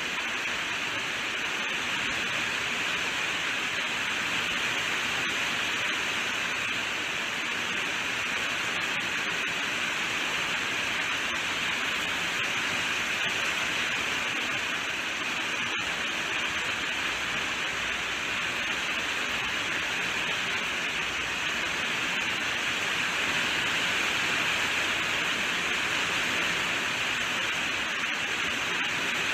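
Steady rain falling, a dense even hiss with no single drops standing out.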